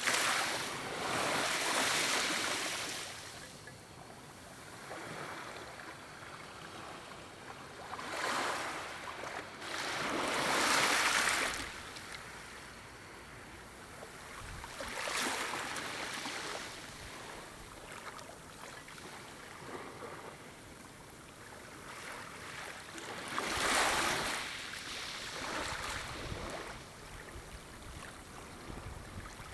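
Small waves lapping on a shore: a soft steady wash broken by the hiss of a wave breaking and running up every few seconds, with the biggest swells near the start, around the middle, and about three-quarters of the way through.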